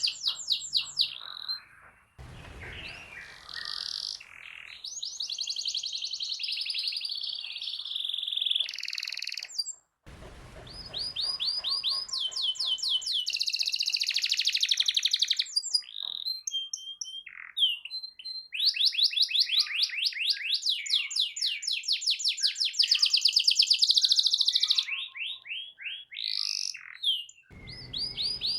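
Domestic canary singing: long, rapid rolling trills of quickly repeated high notes mixed with chirps, broken by short pauses about two and ten seconds in.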